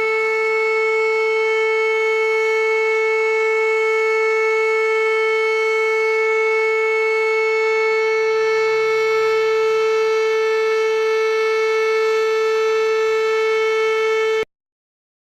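A siren sounding one steady, unwavering tone with no rise or fall, cutting off abruptly near the end.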